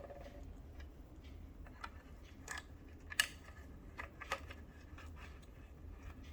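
Scattered small clicks and taps of screws being set into and turned down on the cover of a 4.5 Powerstroke's fuel injection control module, the sharpest about three seconds in.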